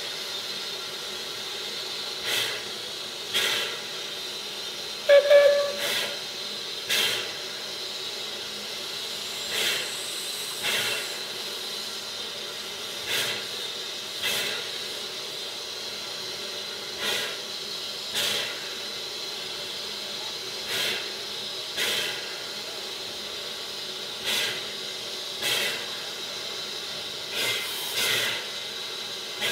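Standing steam railway equipment hissing steadily, with pairs of sharp steam exhaust puffs about a second apart, each pair repeating every three to four seconds. A short, loud pitched toot comes about five seconds in.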